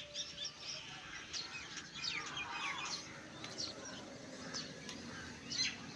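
Birds chirping, with many short calls and quick falling chirps.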